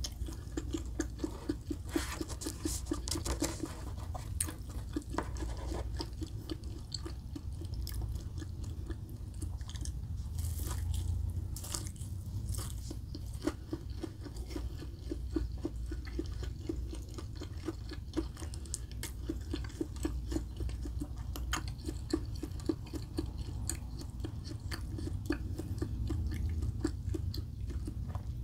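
Chewing and biting of fried Spam and egg close to the microphone: steady mouth sounds with many small clicks and smacks, over a low steady hum.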